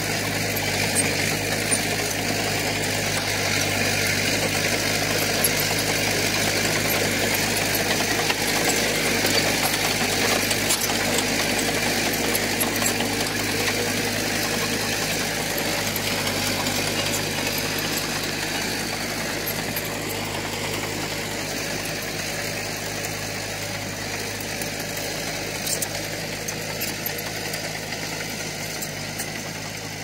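Komatsu D20P crawler dozer's diesel engine running steadily under load while it pushes soil, growing a little quieter in the second half.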